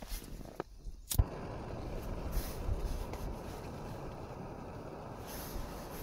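A few light handling rustles, then one sharp click about a second in as a portable gas stove burner lights. The burner then burns with a steady rushing noise.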